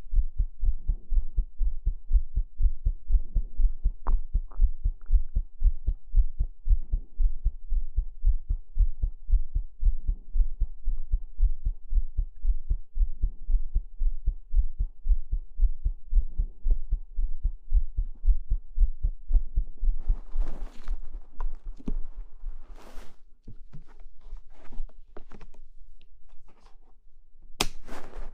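A heartbeat as low, soft, regular thumps in a steady rhythm. From about twenty seconds in, bursts of scratchy rustling noise join it.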